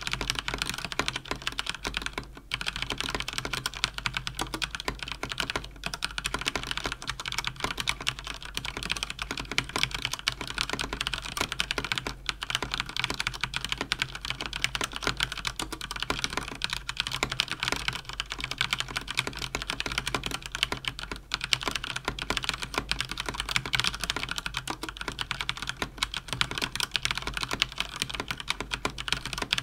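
Fast, continuous typing on a mechanical keyboard with Cherry MX Speed linear switches: rapid keystroke clicks and clacks at around 110 words per minute, with a few brief pauses.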